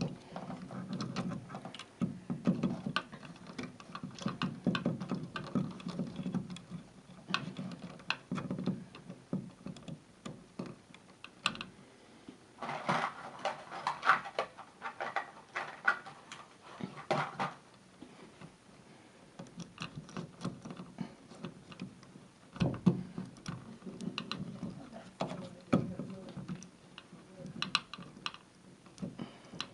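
Irregular clicks, taps and rustling of hands handling tools and small electrical parts during a switch installation, busiest in the middle.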